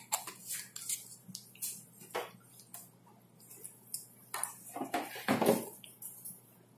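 Handling noises: a string of short, irregular clicks, clinks and rustles as a syringe and a plastic medicine bottle are handled in gloved hands, with a louder clatter about five seconds in.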